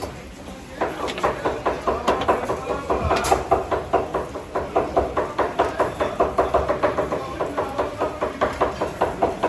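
Rapid, steady knife chopping on a cutting board, about five to six strokes a second, starting about a second in.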